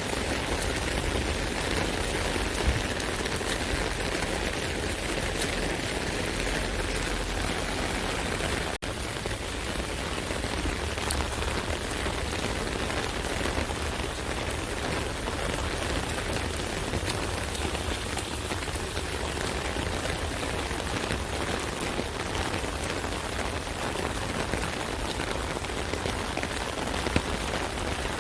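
Steady rain pattering on an umbrella, a dense even hiss with fine drop ticks. There is a split-second dropout about nine seconds in.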